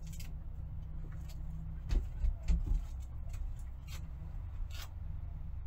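Handling and movement noises of a person putting up a sticker: a few dull thumps about two seconds in and scattered light clicks and crackles, over a steady low hum.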